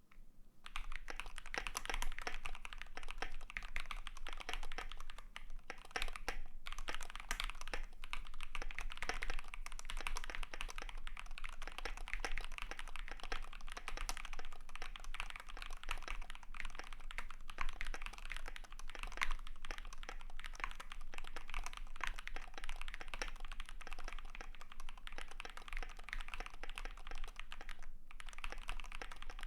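Fast, continuous typing on a custom mechanical keyboard: a KBD75 v3.1 with a brass plate, lubed Fekker Panda V2 tactile switches and AKKO ASA-profile keycaps, its keystrokes clacking densely. Typing starts about a second in, with a brief pause about six seconds in and another near the end.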